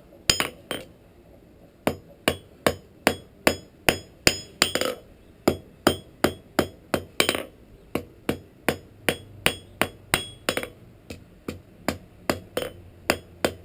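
Blacksmith's hammer striking steel on an anvil in a steady series of ringing blows, about three a second, after a brief pause about a second in.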